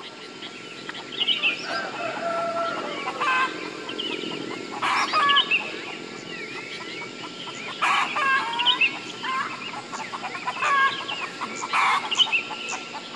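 Chickens clucking and small birds chirping over a steady low background noise, with louder calls a few seconds apart.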